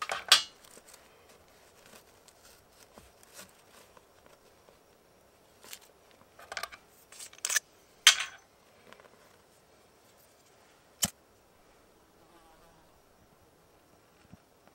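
Hands handling dry tinder and small sticks, making several short rustling and scraping sounds and one sharp click about eleven seconds in. A fly buzzes faintly near the end.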